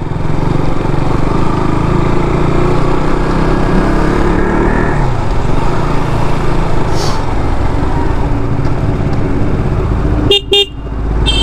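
Motorcycle riding with wind rushing over the microphone. The engine note climbs for about five seconds, then drops back. Near the end a vehicle horn gives a short blast.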